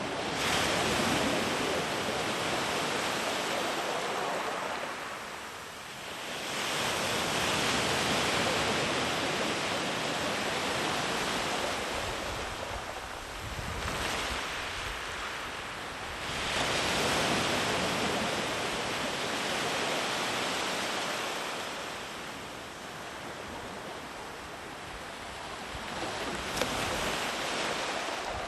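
Sea waves breaking and washing up a beach in repeated surges. Each surge swells over a few seconds and then fades before the next one rolls in.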